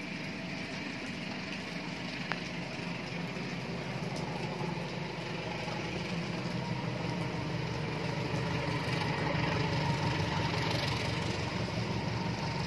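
Approaching train locomotive's engine running with a low hum, growing gradually louder, over the steady hiss of heavy rain.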